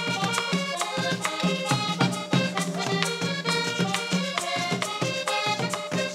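Live Panamanian cumbia played on a button accordion over drums and shaken hand percussion, with a steady, driving beat.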